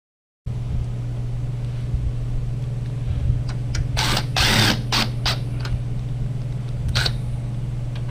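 Tools at work fastening the 10mm bolts that hold a headlight in place: a steady low hum with sharp metallic clicks and rattles about halfway through and again near the end.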